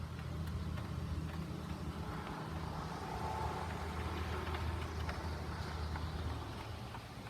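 A motor vehicle's engine running close by with a steady low hum that eases off near the end, with faint rain ticking underneath.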